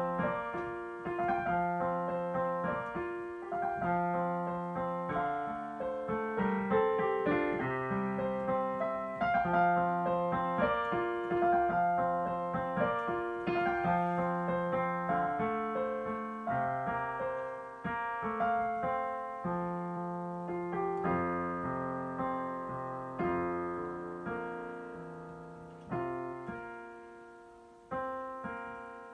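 Digital piano playing a flowing solo piece, a repeating low figure under a melody line. In the last few seconds it slows to separate chords that die away, with short pauses between them.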